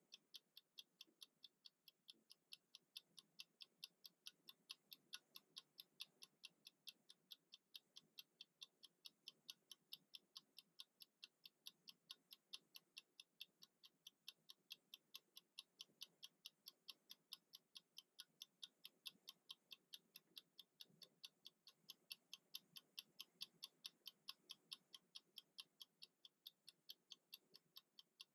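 Wind-up mechanical kitchen timer ticking as it counts down: faint, rapid, even ticks, several a second.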